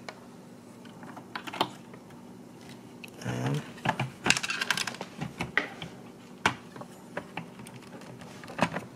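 Irregular small plastic clicks and clatter as a bidet seat's plastic water heater tank is handled and set down into the seat's plastic housing, with a busier run of clicks about four to six seconds in.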